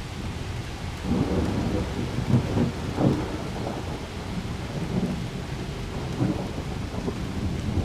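Thunder rumbling over steady rain. The rumble swells about a second in and surges twice soon after.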